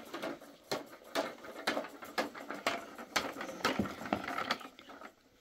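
A run of light knocks or taps, about two a second and fairly even.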